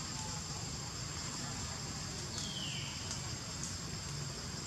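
Steady high-pitched insect drone over a low outdoor rumble, with one short falling call about halfway through.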